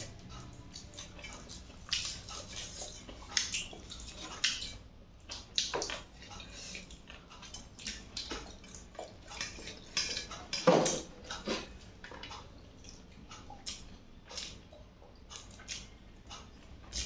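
Close-up eating sounds of two people eating chicken and rice by hand: irregular wet chewing, lip-smacking and clicks, with soft sounds of fingers on steel plates.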